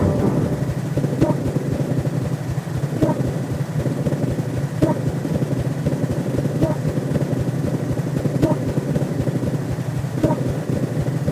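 Synthesized science-fiction sound effect: a steady low electronic rumble with a short pitched blip about every two seconds.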